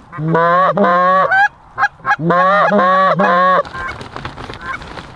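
Goose call blown hard in two quick runs of clucks and honks imitating Canada geese, each run a few rapid notes, to coax circling geese into the decoys.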